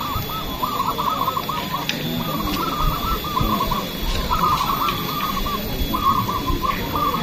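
A chorus of many caged zebra doves (perkutut) cooing at once, their rolling, warbling coos overlapping in phrases with brief gaps, over a steady low background rumble.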